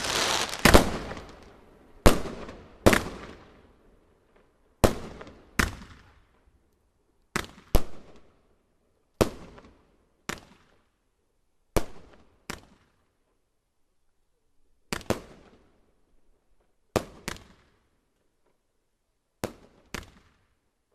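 Fireworks going off: a quick cluster of loud bangs at the start, then sharp single bangs, mostly in pairs, every couple of seconds, each trailing off in an echo.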